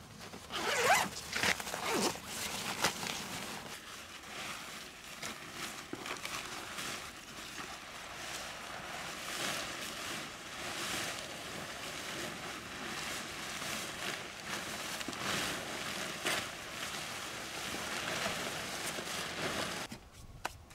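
Zipper on a nylon tent carry bag being pulled open in a few quick strokes, followed by continuous rustling and crinkling of the Quechua Arpenaz Family 4.1 tent's fabric as it is hauled out and spread on the ground.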